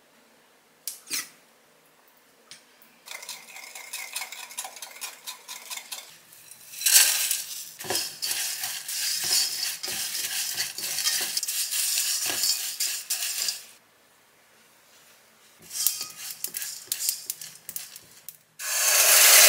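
Dried anchovies stirred and tossed in a hot ceramic-coated wok with a silicone spatula: a dry, dense rattle and scraping in two spells with a pause between. Near the end a sudden loud sizzle starts as seasoning sauce is poured into the hot pan.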